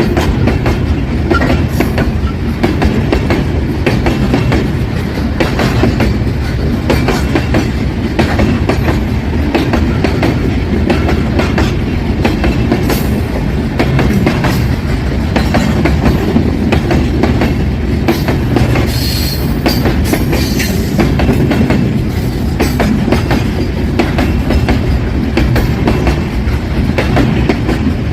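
Loaded freight train rolling past: a steady, loud rumble of the wagons with rapid clickety-clack of wheels over the rail joints. A brief high wheel squeal comes about two-thirds of the way through.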